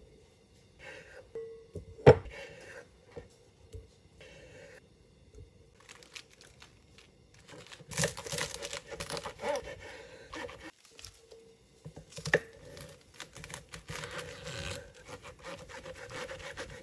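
Kitchen knife cutting on a wooden cutting board, with a sharp knock about two seconds in. From about eight seconds in, a quick run of cuts as the knife slices through romaine lettuce, with the blade tapping the board.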